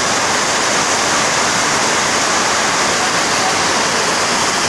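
Muddy floodwater rushing in a fast torrent along a flooded street, a loud, steady rush of water.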